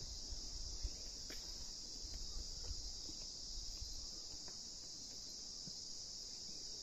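Steady, high-pitched chorus of insects chirring on a rural hillside at dusk, with a low rumble in the first second.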